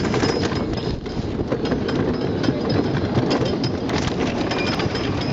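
Cyclone wooden roller coaster's train climbing the chain lift hill: a steady, rapid clatter from the lift chain and the anti-rollback ratchet.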